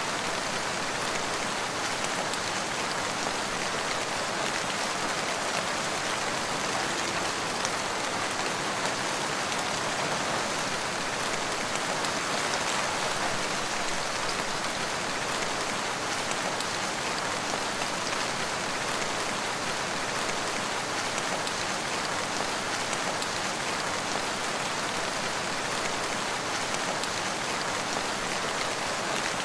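Steady rain falling, an even hiss of drops with no let-up and no thunder.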